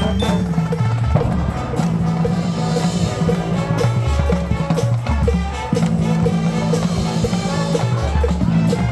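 Marching band playing its field show: brass and sousaphones hold sustained low chords over drums and mallet percussion, with a short tick repeating a few times a second to keep the beat.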